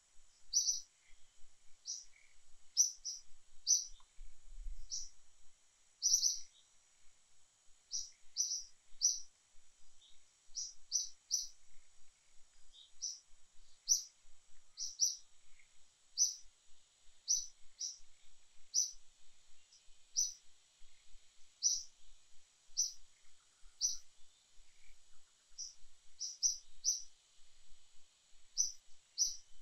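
A bird calling with short, high chirps, about two a second, often in quick pairs or threes.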